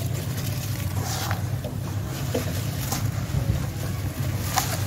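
Hands squishing and sloshing wet charcoal and sand-cement slurry in a plastic basin, with a few sharper wet splats as the paste is squeezed. A steady low rumble runs underneath.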